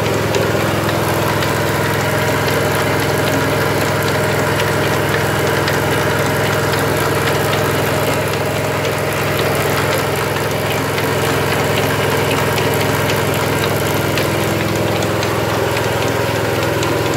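Portable hydraulic power unit running steadily with an engine-like drone, turning a Crossley 24-inch gillnet lifter on slow, with faint irregular clicking from the lifter's turning mechanism.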